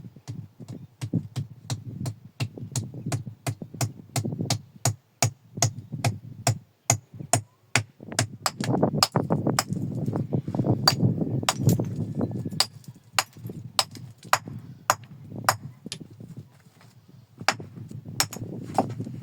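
A steady run of sharp knocks, about two to three a second, over low rumbling handling noise.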